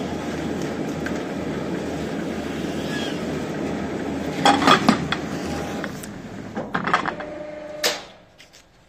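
Fritsch Rollfix 700 dough sheeter running empty, a steady mechanical hum of motor, belt and rollers. Midway there are two bursts of metallic clattering knocks, then one sharp knock a little before the end, after which the running dies away.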